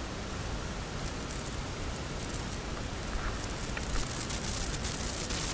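Steady rushing hiss of wind buffeting a camera microphone, with light crackling in the highs that grows toward the end.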